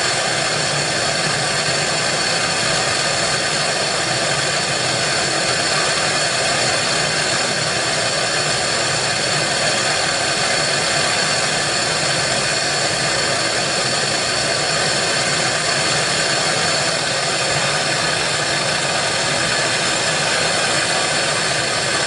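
Hand-held propylene torch burning with a steady, even rushing hiss, its flame held on a padlock clamped in a vise to melt the lock's core.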